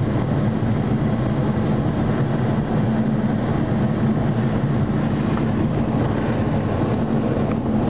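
Steady rush of airflow over a glider's canopy, heard from inside the cockpit in flight, with a low steady hum under it.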